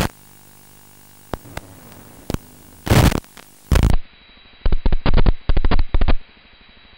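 Several loud, sharp-edged bursts of static hiss and crackle, with a few clicks, over the faint steady hum of the RC plane's motor, which fades out about four seconds in.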